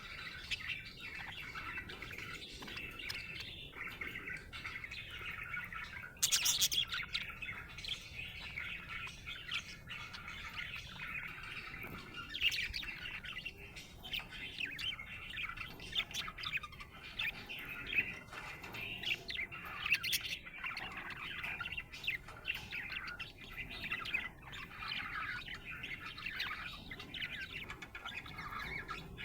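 Budgerigar chirping in quick, continuous runs, with a louder burst about six seconds in.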